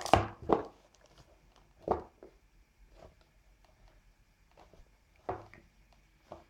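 Hands handling a smartphone in its plastic protective film and its cardboard retail box: a few short rustles and light knocks, the loudest just after the start, with smaller ones about 2 s and 5 s in.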